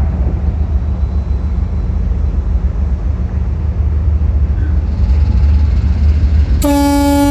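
A ship's horn gives a loud, steady blast that starts about six and a half seconds in and carries on, over a deep steady rumble of the ferry's engines.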